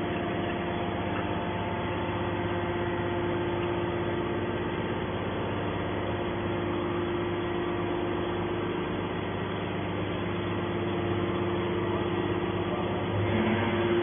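Triple-action hydraulic scrap metal baler's hydraulic pump unit running steadily while the ejection ram pushes a compressed scrap-metal bale out of the chamber. It makes an even machine hum with several held tones, and a lower tone joins it near the end.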